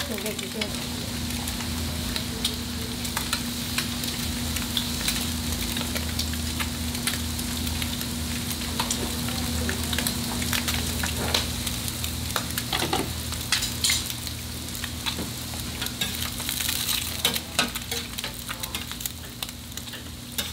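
Food sizzling as it fries, with frequent sharp crackles and clicks and a steady low hum underneath.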